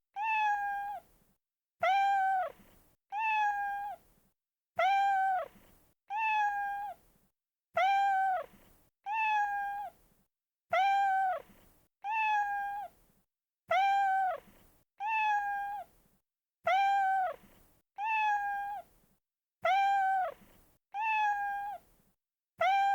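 Domestic cat meowing, the same pair of one-second meows repeated every three seconds like a loop, each meow dropping in pitch at its end.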